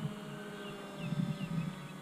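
Volantex Ranger 757-4 RC plane's electric motor and propeller droning in flight overhead: a steady buzzing whine with several overtones that slowly drops in pitch. A short low rumble comes about a second in.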